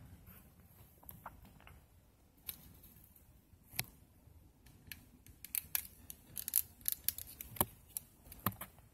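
Irregular sharp clicks and crackles as a butane utility lighter is held to a burning dead cockroach: a couple of single clicks, then from about halfway through a denser run of several a second.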